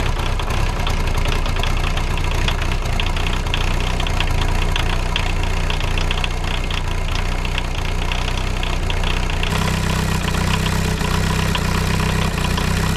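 1984 VW Rabbit's turbo diesel engine idling steadily just after a cold start in freezing weather, with a rapid ticking clatter over a low drone, its exhaust exiting through a stack in the hood. The low drone grows louder about nine and a half seconds in, as the engine bay is heard close up.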